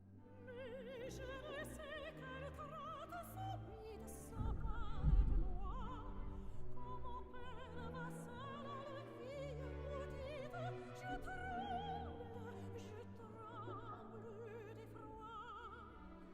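Background music: operatic singing with strong vibrato over orchestral accompaniment. A low thump comes about five seconds in.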